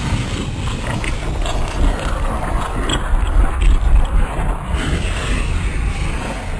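A loud, steady deep rumble with an even rushing noise over it.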